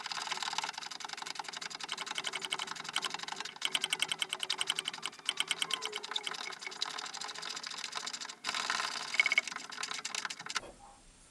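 Ratchet wrench clicking rapidly and steadily as a nut is run down onto a suspension bolt, with a brief pause near the end before it stops.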